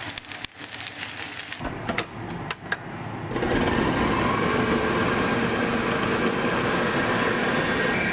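Light crackling and clicks, then a blender motor starts about three seconds in and runs steadily at full speed, blending salsa.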